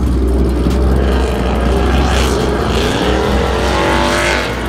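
A car engine running with a deep, steady rumble, then revving up with a rising pitch from about two seconds in, dropping away near the end.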